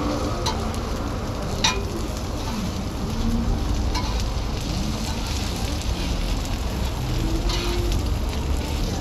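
Korean vegetable pancakes sizzling steadily in oil on a large round flat griddle, with one sharp click about a second and a half in.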